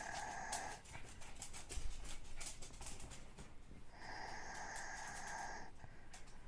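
Man snoring in his sleep, his breaths carrying a whistling wheeze: a drawn-out whistle at the start and another about four seconds in, each about a second and a half long, with a short low snort about two seconds in.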